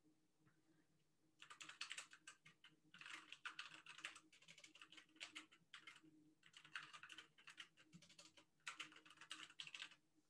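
Faint typing on a computer keyboard: rapid key clicks in several bursts with short pauses, starting about a second and a half in.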